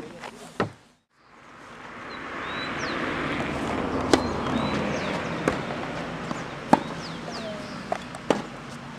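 Tennis ball struck by rackets in a rally on a clay court: sharp pocks about a second apart over a steady hiss, with a few bird chirps. The sound cuts out briefly about a second in.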